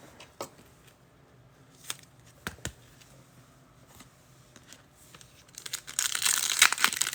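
A few light clicks and taps of trading cards being handled, then, from about six seconds in, a loud crinkling and tearing of a trading-card pack wrapper being torn open.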